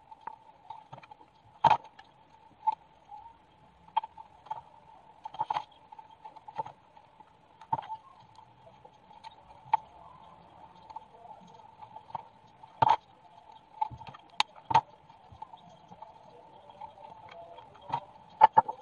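A plastic soda bottle and craft pieces being handled, giving irregular sharp clicks and knocks, a dozen or more, with a faint steady hum underneath.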